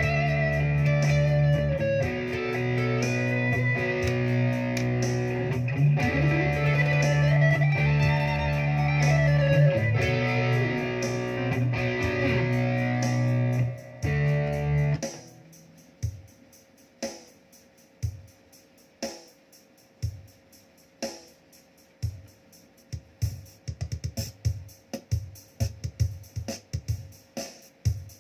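Electric guitar played through a Zoom G1Xon multi-effects pedal: ringing, effected chords with a pitch slide partway through, cutting off about halfway. After that come only sparse short percussive hits, about one a second, getting busier near the end.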